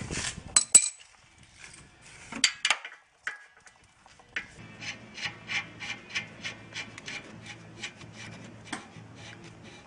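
Ratchet wrench running down the nut on a car's front sway-bar end link. A few knocks at first, then steady ratcheting, about three clicks a second.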